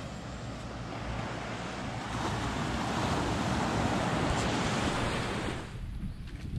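Sea surf washing onto the shore, swelling about two seconds in and falling away sharply near the end, with some wind rumble on the microphone.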